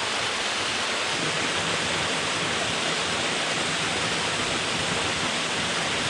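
Steady, loud rush of a small waterfall cascading over rocks into a stream.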